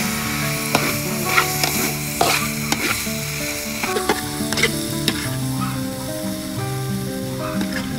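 Red pepper strips and shredded vegetables sizzling in a hot steel wok as they are stir-fried, with a metal spatula scraping and clinking against the pan at irregular moments.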